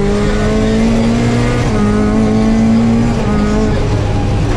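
Toyota Corolla AE86 rally car's twin-cam four-cylinder engine under acceleration, heard from inside the cabin. Revs climb, drop with an upshift about one and a half seconds in, climb again, then fall back near the end.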